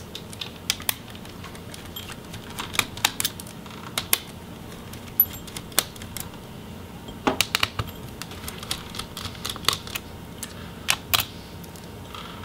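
Small Phillips screwdriver backing motherboard screws out of a laptop chassis: scattered small sharp clicks and ticks, coming in a few short clusters.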